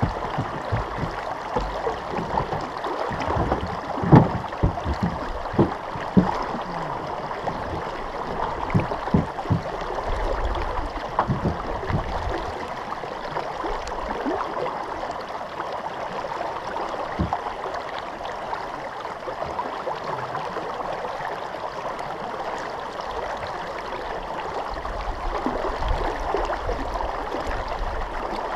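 River water rushing and splashing against the side of a pickup truck standing in the river, a steady wash with frequent louder splashes and knocks in the first half.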